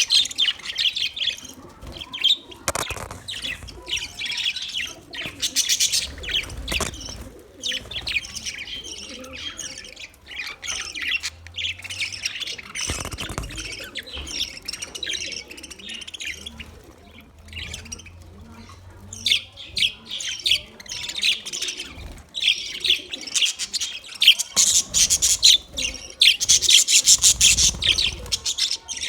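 Budgerigars chirping and chattering in quick, dense runs, getting louder near the end, with a couple of brief knocks.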